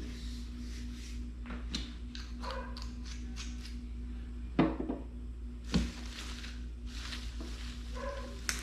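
Light clicks and rustling, with two sharp knocks about four and a half and six seconds in, over a steady low hum.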